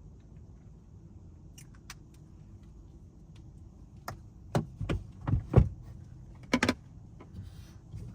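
Low steady rumble of a car heard from inside the cabin, broken about halfway through by a quick run of knocks and clicks, a few of them deep thumps, then a couple of sharp clicks near the end.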